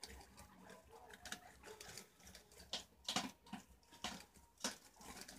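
Preás (wild cavies) feeding in a pile of leaves and vegetables: faint, irregular rustles, crunches and small clicks of nibbling and moving through the greens, with a few louder ones about three and four and a half seconds in.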